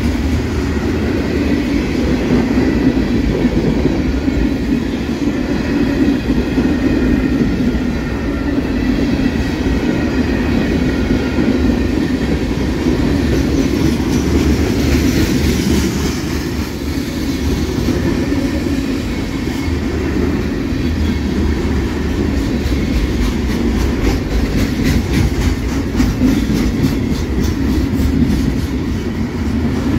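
Freight train cars rolling past at close range: a steady rumble of steel wheels on rail, with a rapid run of wheel clicks over the rail joints in the later part.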